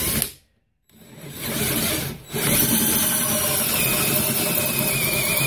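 A DeWalt 20V cordless drill turning a 21 mm tungsten carbide hole saw through stainless steel sheet under heavy pressure, a steady grinding cut. It stops for about half a second near the start, then runs again, dips briefly and carries on steadily.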